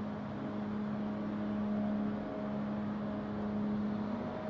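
Heavy forging press machinery running with a steady hum of constant pitch over a faint hiss, with no strikes or impacts.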